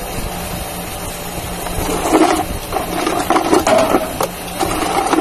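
Steady low rumble, with irregular knocks and scrapes of tools and parts being handled from about two seconds in.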